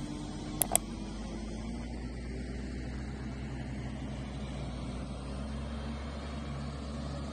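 Heavy diesel engine running at a steady low drone. About half a second in come two quick clicks from a subscribe-button sound effect.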